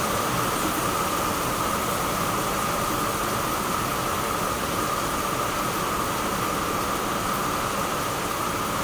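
Steady rain falling on a tiled terrace and potted plants, a continuous even hiss with no let-up.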